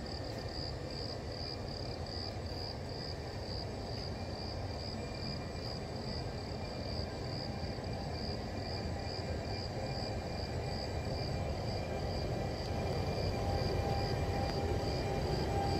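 Electric locomotive approaching slowly along the platform track: a low rumble that grows steadily louder, with a faint steady whine coming in past the middle. A high chirp pulses about two to three times a second throughout.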